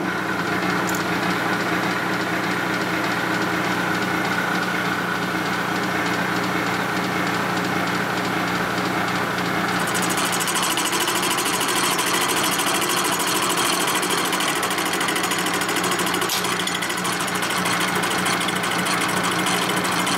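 Milling machine cutting the welded aluminum combustion chamber of a Harley-Davidson panhead cylinder head: the spindle runs steadily with a hum and the cutter grinding through the metal. About halfway through, a higher hiss joins the cutting noise.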